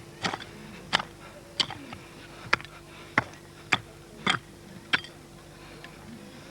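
A steady series of sharp knocks, about eight of them at roughly one and a half a second, like a hand tool striking again and again.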